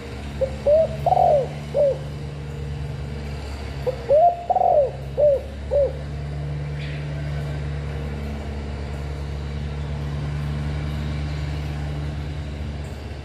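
Spotted dove cooing: two short runs of arched coo notes, one in the first two seconds and another from about four to six seconds in. A steady low hum runs underneath and carries on alone afterwards.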